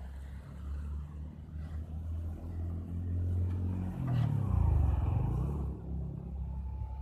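A motorcycle passing on the road: a low engine drone that builds, is loudest and shifts in pitch about four to five seconds in as it goes by, then eases off.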